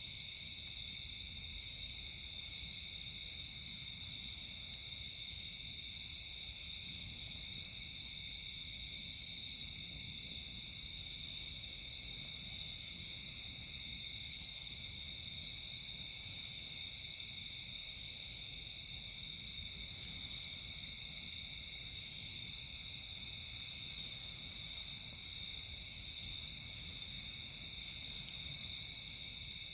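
Steady chorus of night insects, a continuous high shrill. On top of it, a higher insect call comes back about every four to five seconds: a few quick pulses, then a held buzz lasting a second or two.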